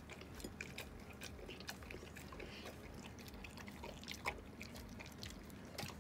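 Labrador retriever eating wet rice porridge from a bowl: faint, irregular wet smacking and lapping clicks, with one sharper click about four seconds in.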